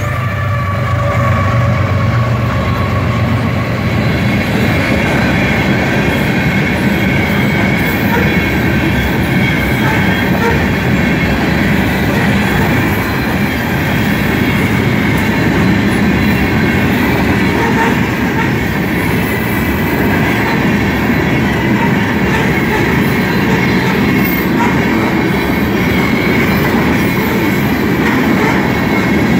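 Freight train passing at close range: a diesel locomotive's engine at first, then a long string of covered hopper cars rolling by with a steady rumble and clacking of wheels over the rail joints, and a thin high wheel squeal.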